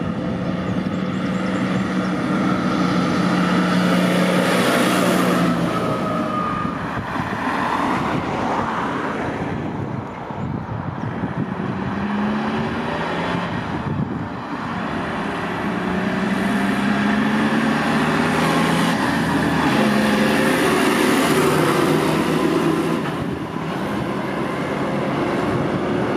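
A 2004 JCB Fastrac 3220 tractor's Cummins 5.9-litre six-cylinder diesel pulling along a road while towing a harrow, its engine note steady with several rises in pitch as it accelerates.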